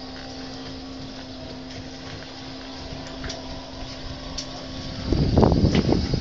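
Steady low mechanical hum over a hiss, then wind buffeting the microphone in loud, irregular gusts about five seconds in.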